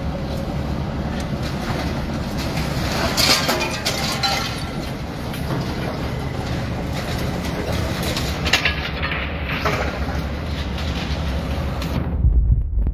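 Heavy demolition machinery running, with a steady mechanical din and several sharp knocks and clanks of debris. Near the end the higher sounds drop away suddenly, leaving a low rumble.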